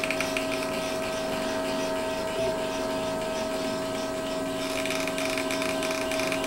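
3D printer running a print: its stepper motors drive the print head back and forth, giving a steady whining tone under a rapid fluttering patter that shifts about three quarters of the way in as the head's moves change.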